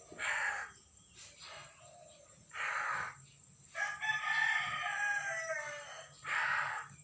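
Loud bird calls: short, harsh screeches of about half a second each, and about four seconds in one longer, pitched call lasting some two seconds.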